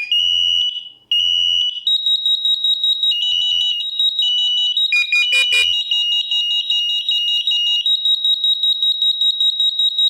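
Two beeps, then from about two seconds in, SAFE-TECH interlinked smoke alarms sound a loud, high-pitched alarm tone that pulses rapidly, with further lower beeps overlapping it. This is the alarm going off during a test.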